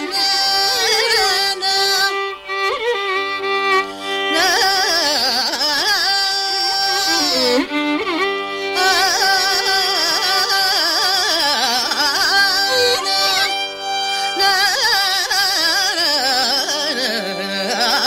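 Carnatic classical music in raga Shankarabharanam: a woman's voice with violin accompaniment, the melody sliding and ornamented over a steady drone.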